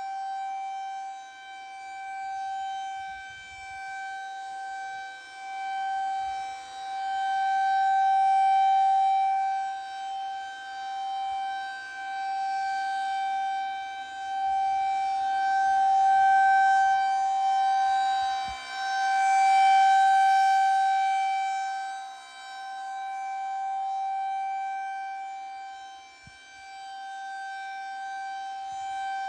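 Federal Signal 2001-SRNB outdoor warning siren sounding a steady single tone during its monthly test. The pitch holds steady while the loudness swells and fades every few seconds as the rotating horn sweeps past.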